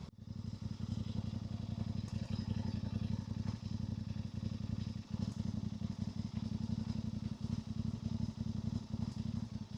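Voge DS800X Rally's parallel-twin engine idling steadily through its standard exhaust, warming up after a cold start.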